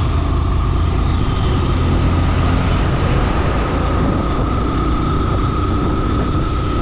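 Steady engine and road noise of a vehicle on the move, with a thin constant whine that stops near the end.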